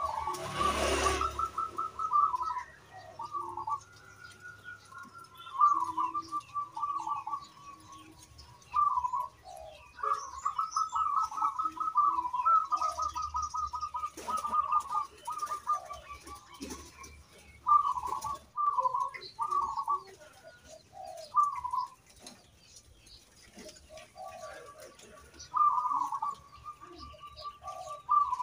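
Zebra dove (perkutut) cooing in repeated bouts of rapid, rolling coos, with pauses between the phrases. A brief loud noise comes about a second in.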